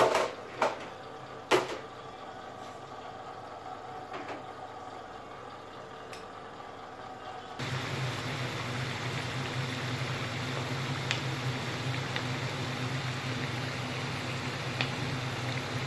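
A few knocks in the first couple of seconds, then, from about halfway, potato wedges deep-frying in a pan of hot oil: a steady sizzle with occasional pops over a low hum.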